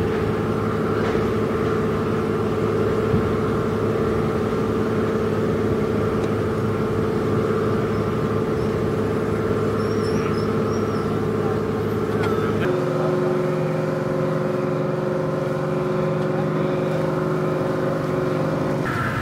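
Boat engine running steadily with a constant hum. About thirteen seconds in, the hum changes abruptly to a different steady pitch.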